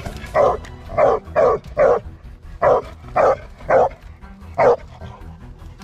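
Pitbull barking in a run of about eight barks, roughly two a second with a brief pause after the fourth, baying at a python cornered under rocks.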